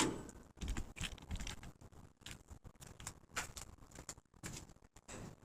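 Faint, irregular clicks, light knocks and rustling, like materials or a tool being handled; no motor is running.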